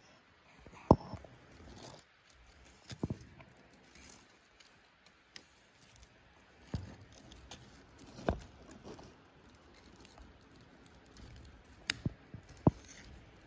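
Close handling noise: a few scattered sharp knocks and taps with faint rustling between them, the loudest about a second in.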